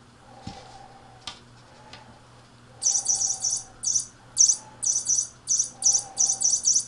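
Cat wand toy waved above kittens, giving a run of quick, high-pitched chirping bursts, about two or three a second, starting about three seconds in. Earlier there is a single sharp click.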